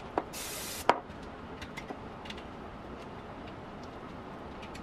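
Light clicks and ticks of a wire grill rack as raw marinated quail are pressed and arranged on it by hand, with a short hiss about half a second in.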